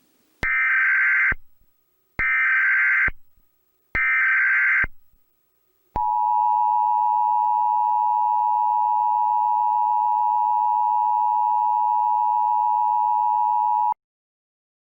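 Emergency Alert System tones: three short bursts of SAME digital header data, each just under a second long, followed by the two-tone attention signal (853 and 960 Hz) held steady for about eight seconds and then cut off.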